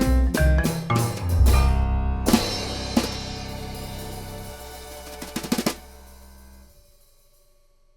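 Upbeat background music with drums: the tune stops on a loud crash about a second and a half in that rings out, a quick run of drum hits comes around five seconds in, and the sound fades away to near silence near the end.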